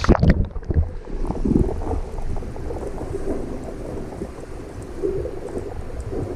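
A splash, then muffled rushing and gurgling of stream water, low and dull as if heard with the microphone underwater.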